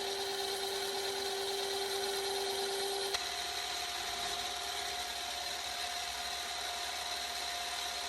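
A small electric power tool motor running steadily with a whine. About three seconds in, the whine jumps abruptly to a higher pitch, as when the tool is switched to a higher speed setting.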